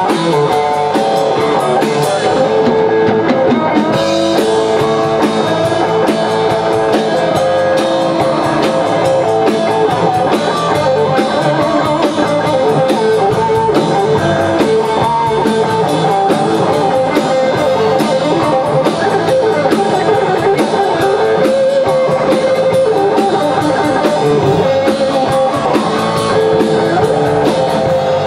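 Live rock band playing an instrumental passage on electric guitar, electric bass and drum kit, without singing.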